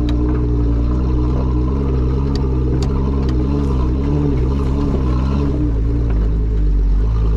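Jeep Wrangler engine running at a steady, low road speed while driving slowly along a gravel trail, with a few sharp clicks of gravel stones under the tires.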